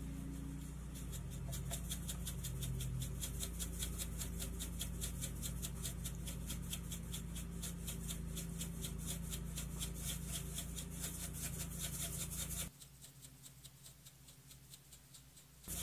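A plastic glitter shaker bottle being shaken over slime, its contents rattling in an even rhythm of about four to five shakes a second, over a steady low hum. The rattle stops abruptly about thirteen seconds in, leaving only faint ticks.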